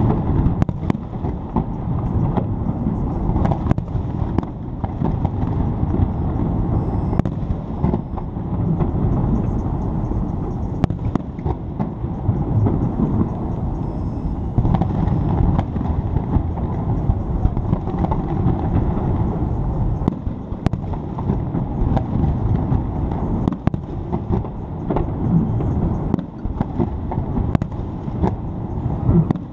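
Fireworks display going off: many sharp bangs, one after another at uneven intervals, over a steady low rumble.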